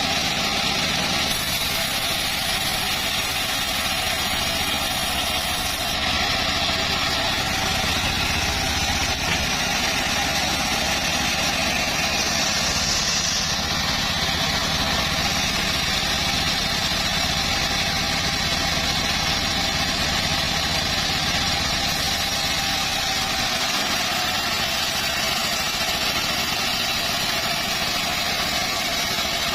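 Circular saw rig cutting teak, running steadily: a continuous machine drone with a dense hiss over it and no clear pauses.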